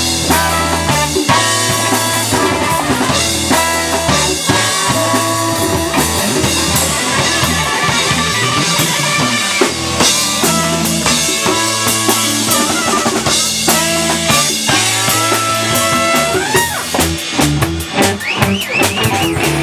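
A live band playing a brass-driven groove: trumpet and saxophones blow short repeated riffs over drum kit, electric bass, electric guitar and congas, with a wavering high horn line near the end.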